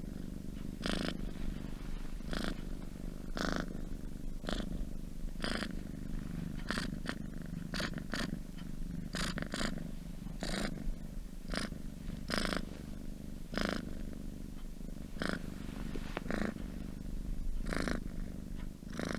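Domestic cat purring steadily: a low continuous rumble with a noisy pulse at each breath, about once a second.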